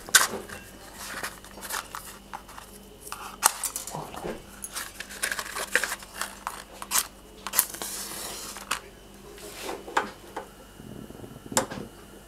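Kitchen handling noises at a gas stove: scattered clicks, light knocks and rustling as pots, utensils and food are handled.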